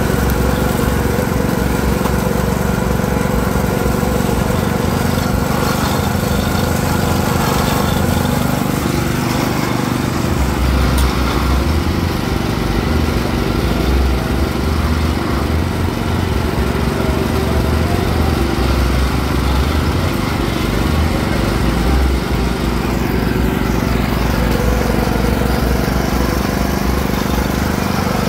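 Motor-driven sugarcane juice press running steadily, its ridged steel rollers crushing sugarcane stalks.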